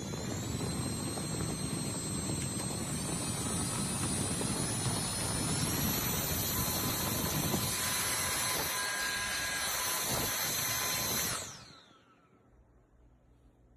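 Diveblues Turbo handheld fan running with a rush of air and a high motor whine that steps up in pitch a few times as the speed is raised. About eleven seconds in it is switched off and the whine slides down as it winds to a stop.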